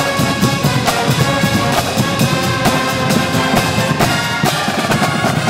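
Brass band music: horns playing over a busy drum beat.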